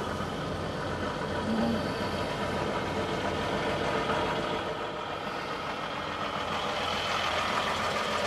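A vehicle engine idling steadily, heard from inside a car's cabin.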